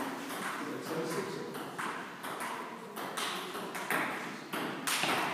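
Table tennis balls clicking off bats and the table during play, a series of sharp, irregularly spaced hits.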